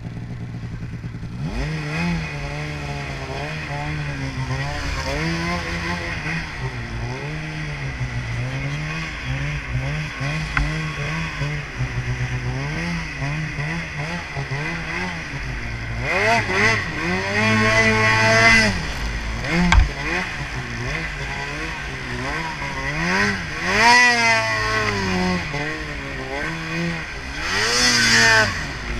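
Snowmobile engine revving up and down over and over under changing throttle as it is ridden, with several louder, higher-pitched surges in the second half.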